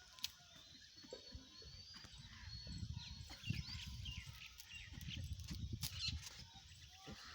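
Donkey grazing close by: soft, irregular crunching and tearing as it crops and chews grass, loudest in the middle of the stretch.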